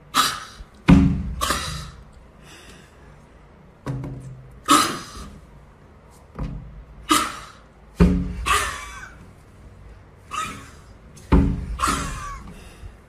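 Hands knocking and thumping on a glass door pane from both sides, about a dozen irregular knocks, some with a deep thud.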